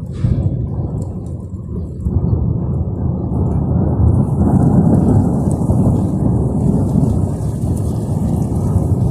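Storm noise: a loud, low, rough rumble that starts suddenly and swells about two and four seconds in, with a faint high rain hiss joining about four seconds in.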